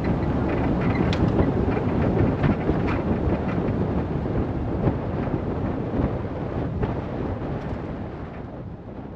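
Vehicle driving on a dirt forest road: steady tyre and road rumble with wind on the microphone and scattered small clicks, fading out near the end.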